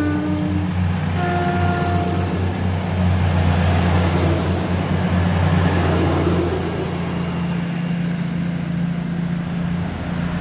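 East Midlands Railway Class 222 Meridian diesel multiple unit passing along the platform, its diesel engines running with a steady low hum that eases off after about seven seconds. A single horn note sounds for about a second, a second in.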